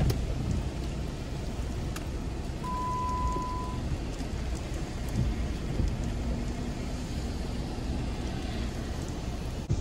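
Light rain on a car with a steady low rumble, heard from inside the car under a thunderstorm. A short, steady electronic beep sounds about three seconds in.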